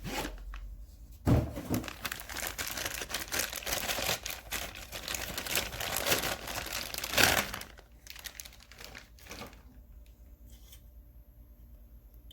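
Packaging rustling as tools are handled and unwrapped, with a couple of sharp knocks, about a second in and again after seven seconds. It dies down for the last few seconds, leaving only a few faint clicks.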